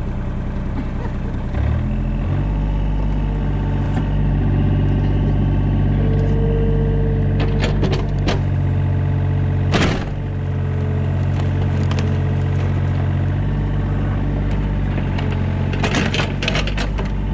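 Compact excavator engine running steadily under load as it digs a trench, picking up revs about two seconds in. Sharp clanks and scrapes of the steel bucket against soil and roots come around eight and ten seconds in, and again in a cluster near the end as it lifts a bucket of clay onto the spoil pile.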